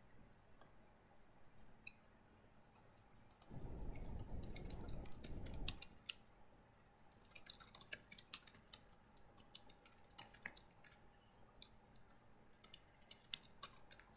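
Computer keyboard typing: quick runs of key clicks, a few scattered ones at first and then dense runs through most of the rest. A low muffled rustle lasts about two seconds, starting about three and a half seconds in.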